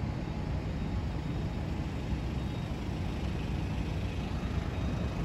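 Steady low rumble of city street traffic, with vehicle engines running at a distance.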